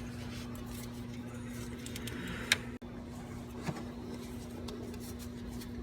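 Hands and tools working at an electrical connector deep in an engine bay: a few scattered clicks and light handling noise, the sharpest click about two and a half seconds in, over a steady low hum.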